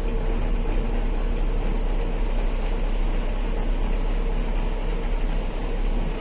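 Heavy truck driving on the road: steady engine rumble and road noise with a constant hum and a faint high ticking about three times a second.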